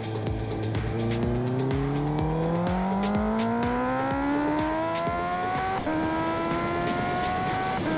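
Honda CB650R inline-four engine with a full Akrapovič exhaust, accelerating through the gears. Its pitch climbs steadily for about five seconds, drops with an upshift, climbs again and drops with another shift near the end. Wind noise runs underneath.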